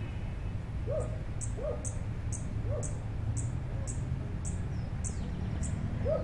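Sparkling violetear singing: a steady, repetitive series of about ten sharp, high chip notes at roughly two a second, starting about a second in. Underneath are a low steady rumble and a few short low calls from another bird.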